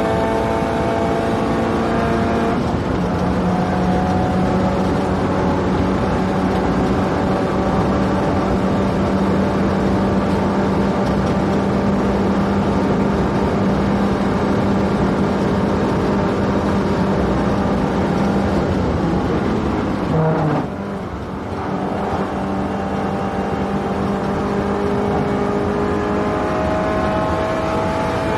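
Subaru Impreza WRX STI's turbocharged flat-four engine running hard at speed, with tyre and wind noise. The engine note drops in pitch a few seconds in as it shifts up, holds steady at high revs for a long stretch, dips briefly past the middle as the driver lifts, then climbs again as it accelerates.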